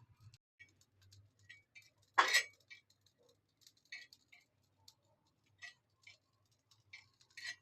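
Ajwain (carom seeds) and garlic crackling as they roast on a hot tawa: scattered small pops and ticks, with one louder crackle about two seconds in. The crackling is the sound the cook waits for as the seeds roast toward brown.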